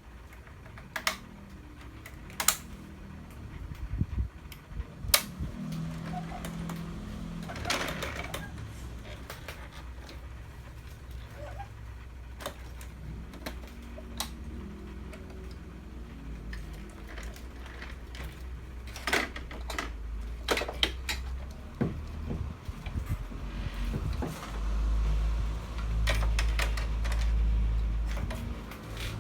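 Small electric motors and gearing of a 1/12-scale radio-controlled 6×6 model truck running with a low hum that swells louder near the end, with scattered sharp plastic clicks and knocks.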